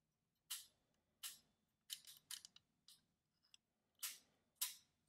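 Sharp clicks from the exposed mechanism of a Brunsviga Nova 10 mechanical calculator as it is worked by hand: about seven single clicks at irregular intervals, with near silence between them.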